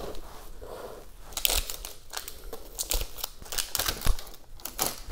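Hands handling terrarium materials: irregular short rustles and light clicks, starting about a second and a half in.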